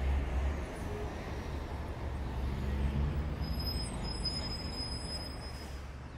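Steady low rumble with a hiss over it, and a faint thin high tone for about two seconds in the second half.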